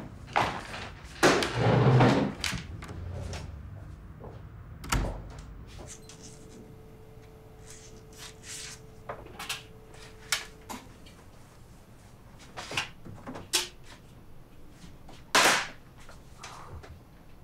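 Folders and chairs being handled as people get up from a table, then a door thud about five seconds in. After that come scattered household knocks and clatter, with a faint steady hum for several seconds in the middle and a loud bump near the end.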